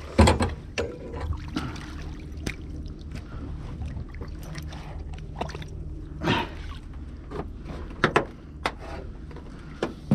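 Scattered knocks and clicks in a fishing boat as a freshly caught fish and the tackle are handled, with a couple of louder bumps, over a low steady hum.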